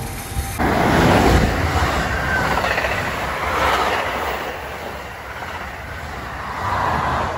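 NJ Transit double-deck Multilevel passenger coaches passing close at speed: a steady rush of steel wheels on rail over a deep rumble. The sound starts abruptly about half a second in and swells and eases as the cars go by.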